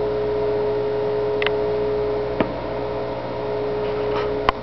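A steady electrical hum with a constant mid-pitched tone, broken by a few short clicks, the sharpest near the end.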